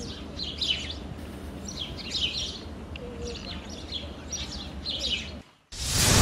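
Birds chirping in about five short phrases, roughly a second apart, over a low background rumble. Near the end the sound cuts out briefly and a loud whoosh begins.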